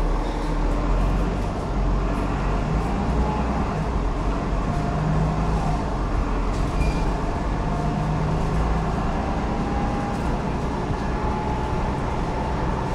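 Cummins ISLe8.9 straight-six diesel and ZF 6HP604C automatic gearbox of a double-decker bus under way, heard from inside the passenger cabin: a steady low rumble with a faint whine that climbs slowly in pitch over the second half.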